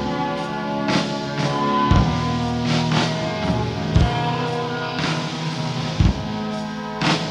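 A live rock band playing an instrumental passage with no vocals: held notes ring over a slow drum beat, with a heavy kick-drum hit about every two seconds and lighter hits in between.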